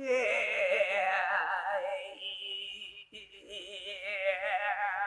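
A singing voice holding long, high notes with a wide, fast vibrato, breaking off briefly about three seconds in.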